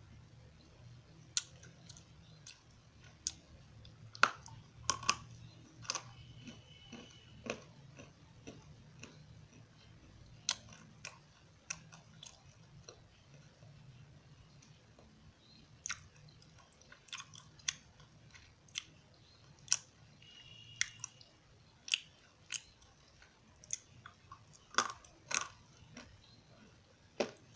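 Crunchy edible clay (eko clay) being bitten and chewed close to the microphone: sharp, irregular crunches and clicks, often several a second, over a low steady hum.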